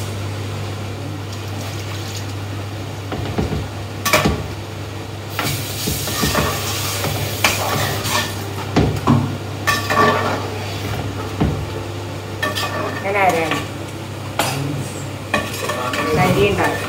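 A flat spatula stirs chicken curry in a wide metal pot, scraping and knocking against the metal while the curry sizzles. The ground coconut masala has just gone in and is being mixed through. A steady low hum runs underneath.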